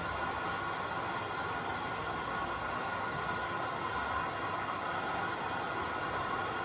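AEG 7000 Series Lavamat front-loading washing machine running with a steady, even noise.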